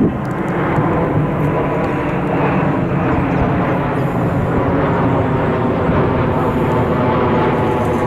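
Jet airliner passing overhead, its engines giving a steady, loud rush of noise with a faint whine.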